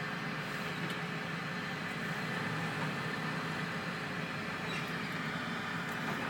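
Steady engine and road noise of a moving vehicle, heard from inside its cab.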